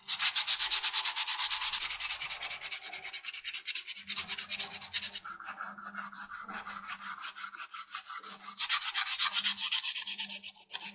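Sandpaper rubbed quickly back and forth by hand over a small wooden plane handle, about five strokes a second. The strokes grow softer about four seconds in and louder again near the end.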